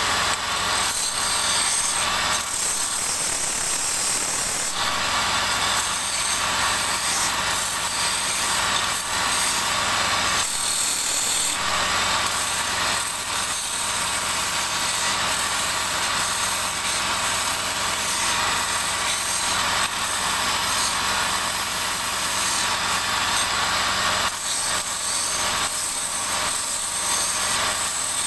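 Wood lathe running with a turning tool cutting into the spinning wood: a steady motor hum under a scraping, hissing cut that grows and eases as the tool moves along the piece.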